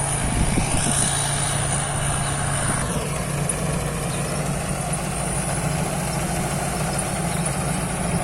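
Thai Seng Yont rice combine harvester's engine running steadily during harvesting, its hum stepping slightly higher in pitch about three seconds in.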